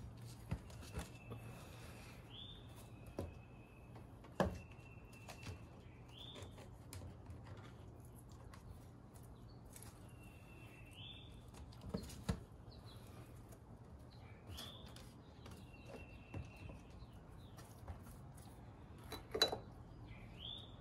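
A songbird repeats a short phrase every couple of seconds: a held whistle followed by a quick rising note. Scattered sharp knocks and clinks from pots and plants being handled on the wooden deck are the loudest sounds, the strongest a few seconds in, near the middle and near the end.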